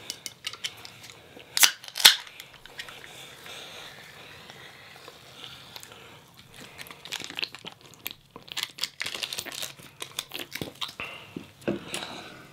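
A food package or container being opened by hand: crinkling and tearing, with two sharp snaps about two seconds in and a run of crackling clicks later on.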